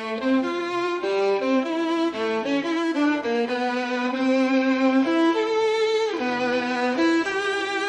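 Violin playing a lyrical melody, moving between short notes and notes held about a second with vibrato.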